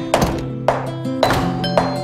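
Guitar music over a steady beat, with a sharp percussive hit about twice a second.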